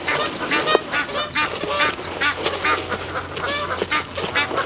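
Geese honking in a rapid run of short calls.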